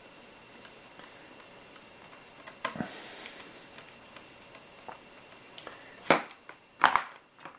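Small hand tool and plastic model parts being handled: a few light clicks and taps about two and a half seconds in, then two sharper clicks near the end as a screwdriver works small screws into plastic clips.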